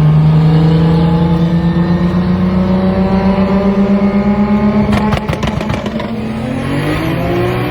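Turbocharged 2JZ inline-six in a swapped BMW 335i pulling hard through a gear, its pitch rising steadily. About five seconds in comes a quick rattle of sharp pops as the revs drop at the shift, and then the revs climb again in the next gear.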